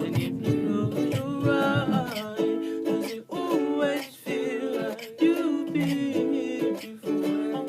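Acoustic pop cover: a strummed ukulele-like instrument keeping a regular chord rhythm, with wordless sung vocal lines over it.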